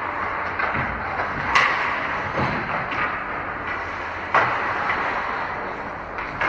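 Ice hockey play in an indoor rink: a steady wash of skates on ice and arena noise, broken by four sharp clacks of stick, puck or boards spaced about a second and a half apart.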